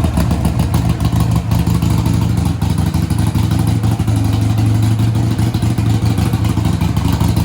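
Harley-Davidson Iron 1200's air-cooled 1200 cc V-twin running through Vance & Hines Twin Slash slip-on mufflers, idling loud and steady with a lumpy pulse. The sound is loud through the aftermarket slip-ons that replaced the stock mufflers.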